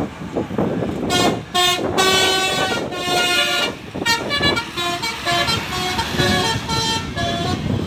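A tour bus's Basuri 'telolet' multi-tone horn playing a tune: held horn notes that step up and down in pitch every fraction of a second, with short breaks. It starts about a second in, over road noise.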